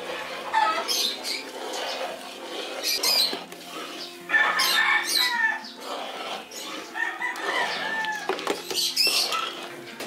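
Chickens clucking, with a rooster crowing, in a series of separate calls over a faint steady hum.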